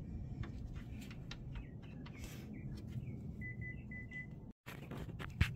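A quick run of about four short, high electronic beeps about three and a half seconds in, over a faint low hum with a few light clicks. The sound drops out briefly near the end.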